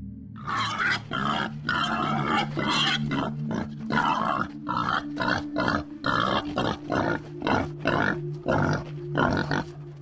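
Wild boar grunting over and over, about two short grunts a second, with longer grunts near the start.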